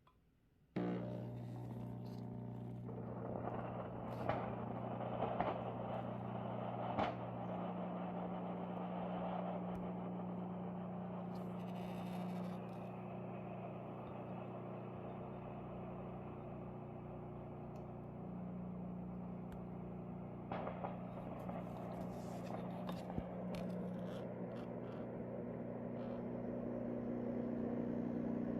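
Benheim BSM-800WH steam mop running. It starts abruptly about a second in, then holds a steady electric buzz with a hiss over it. Occasional light clicks and knocks come through, growing slightly louder near the end.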